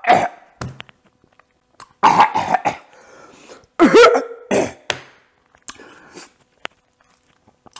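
A man coughing and clearing his throat in a series of short bursts, the loudest about four seconds in, from the burn of extremely spicy chicken ramen noodles.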